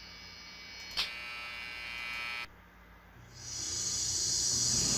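Sound-effect previews played from a stock-sound website. First comes a buzzing electronic tone with many overtones. About a second in there is a click and a second buzzing tone, which cuts off after about two and a half seconds. Then comes a steady high-pitched hiss.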